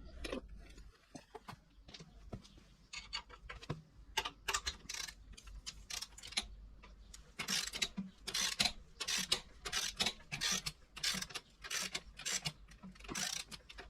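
Ratchet wrench clicking in repeated runs as the motorbike's rear axle nut is loosened, faint and scattered at first, then a steady run of sharp clicks about three a second from about halfway through.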